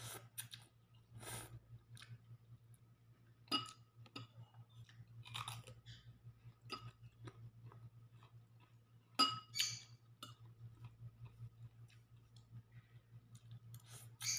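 Close-up eating of Indomie instant noodles: chewing and slurping, with a metal fork clinking a few times against the ceramic bowl. A steady low hum runs underneath.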